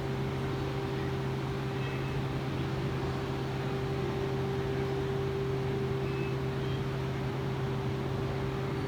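Steady mechanical drone: two low held tones over an even rush of noise, unchanging throughout.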